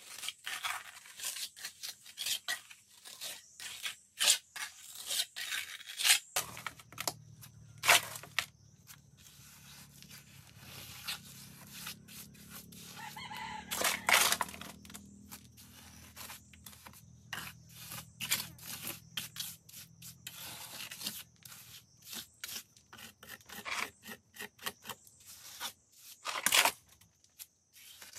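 A rooster crows once, about fourteen seconds in, over repeated sharp clicks, knocks and scraping from hand work.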